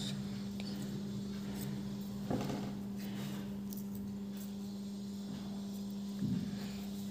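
Scissors cutting small pieces of paper: two short snips, one a little after two seconds in and one near the end, over a steady low hum.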